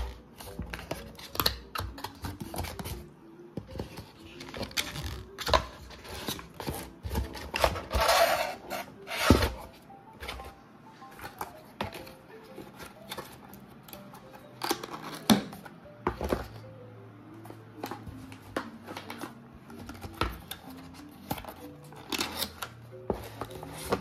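Cardboard packaging being handled: boxes sliding, scraping and tapping, with many small clicks and several sharp knocks. The loudest part is a scraping rub about eight seconds in, followed by a hard knock.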